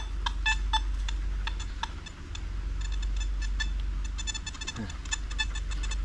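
Metal detector sounding many short, uneven beeps as its search coil sweeps over a dug hole. The target signal keeps breaking up and dropping out.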